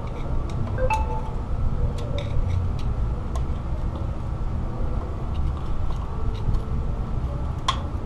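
Light metallic clicks and clinks, about a dozen scattered through, as a screwdriver pries the old outer wheel bearing out of a 1998 Nissan Frontier's front hub, over a steady low rumble.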